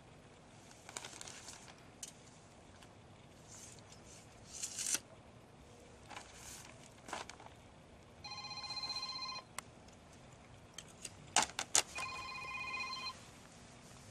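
Mobile phone ringtone ringing twice, each ring a bit over a second long, about four seconds apart. Before the rings there are a few soft clicks and rustles.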